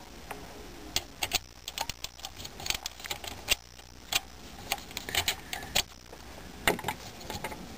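Screwdriver clicking and scraping irregularly against the screws holding an IBM 5251 keyboard's control circuit board as they are loosened, a run of small sharp metallic clicks.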